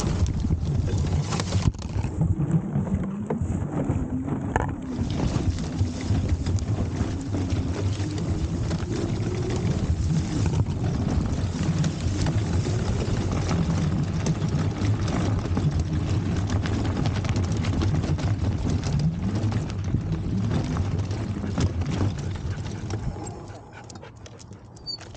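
Fat-tyre e-bike rolling over rough grass and dirt: a steady rumble with a busy rattle from the frame and tyres over the uneven ground, and wind on the microphone. Near the end it gets much quieter as the bike reaches smooth pavement.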